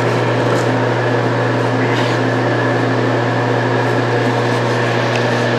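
Steady mechanical hum: a low drone with several higher steady tones over it, like a fan or blower running. A few faint rustles of straw underfoot.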